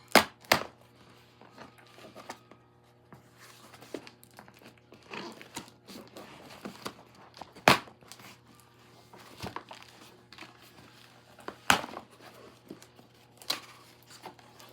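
Packaging being handled and pulled open: crinkling and tearing of the wrapping, with several sharp knocks, the loudest right at the start and about eight and twelve seconds in.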